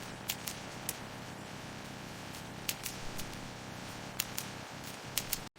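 Faint steady hum of production-line machinery, with a handful of light, scattered clicks and ticks.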